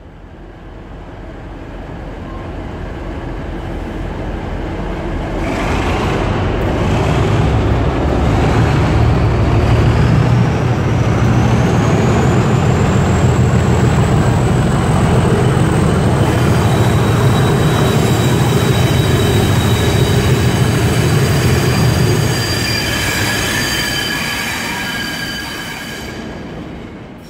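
Two Class 37 diesel locomotives with English Electric engines accelerating a freight train through a station under an echoing arched roof. Loud engine noise builds with a turbocharger whistle rising steadily in pitch over about ten seconds. Later come high wheel squeals as the train passes, and the sound fades near the end.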